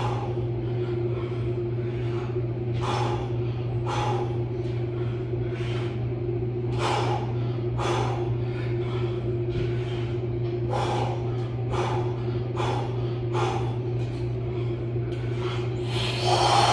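A man's sharp, puffing breaths from the exertion of push-ups, coming roughly once a second, with a louder breath near the end. A steady low hum runs underneath.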